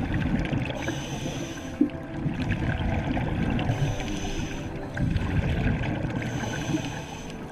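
Scuba diver breathing through a regulator underwater: a hissing inhale through the demand valve about every three seconds, three times, alternating with the low rumble of exhaled bubbles.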